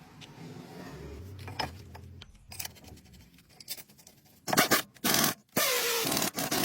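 Scraping and rubbing during hands-on brake work, soft at first, then several loud harsh rasping bursts in the second half.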